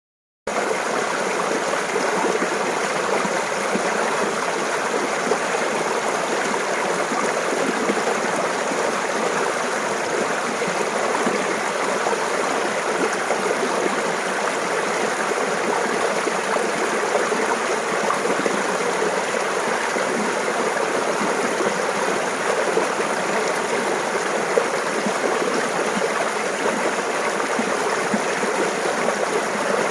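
Clear running water of a mountain stream, babbling steadily. It starts about half a second in.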